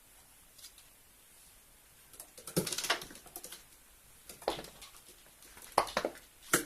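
Chihuahua puppy's claws clicking and pattering on a hard surface in short bursts, four times, the first and longest about two and a half seconds in.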